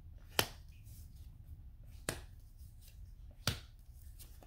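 Three sharp clicks by hand, about a second and a half apart, over a faint low hum.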